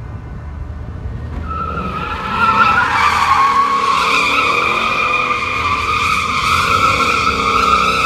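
Ford Mustang drifting: its tyres squeal in a long, steady screech that starts about a second and a half in and gets louder about a second later, over the engine's running rumble.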